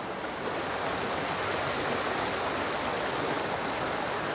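Steady rushing noise of flowing water, even and unbroken.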